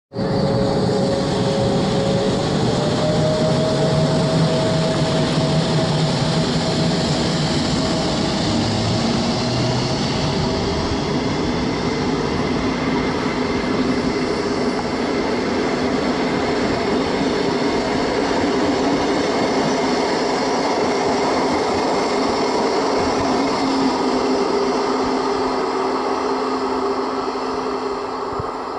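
ÖBB passenger train, an electric locomotive hauling coaches, passing at speed: steady rolling noise of wheels on rails with a held whine, easing slightly near the end as it moves away.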